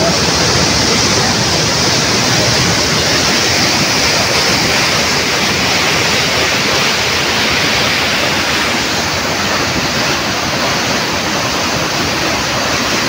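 Fast-flowing floodwater rushing and churning, a loud, steady rush of water with no let-up.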